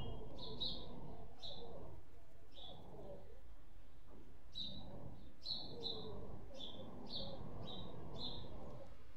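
A small bird chirping: short, high notes that drop slightly in pitch, repeated a few times a second in two runs, the second starting a little after four seconds in. A steady low background rumble runs beneath them.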